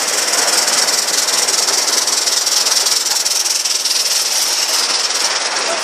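Gauge one live-steam model locomotive running past close by, giving off a steady, loud hiss of steam.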